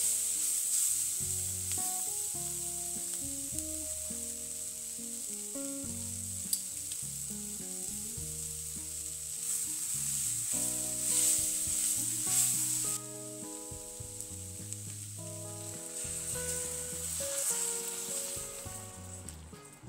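Chopped onions and paprika sizzling in a hot pot, stirred with a spatula; the sizzle eases about two-thirds through and dies down near the end.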